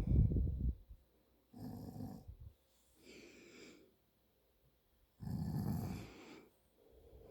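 A sleeping man snoring: a loud, low, rattling snore that ends just under a second in, then quieter breaths, and another loud snore about five seconds in, followed by a soft breath out.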